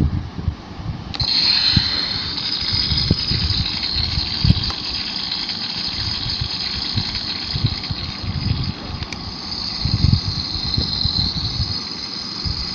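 A toy's small electric motor switched on about a second in and running with a steady high whine, over irregular low thumps and knocks.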